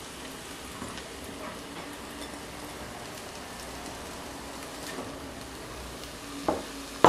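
Diced eggplant and onion sizzling in hot vegetable oil in an electric multicooker's bowl: a steady, soft crackle with a light knock about six and a half seconds in.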